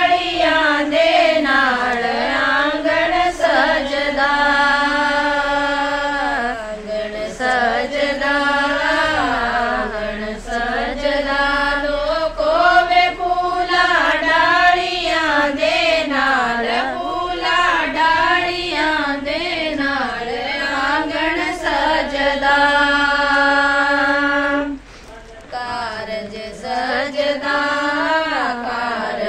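A group of women singing a folk song together in unison, without instruments, in long drawn-out phrases with held notes. There is a brief break between phrases near the end.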